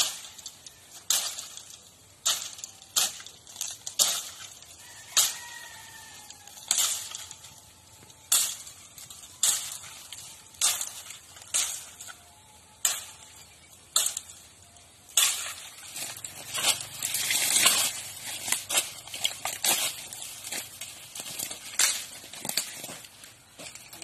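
A hand-held blade slashing through bamboo grass, about one sharp swishing stroke a second. For a few seconds past the middle the cut stems rustle steadily.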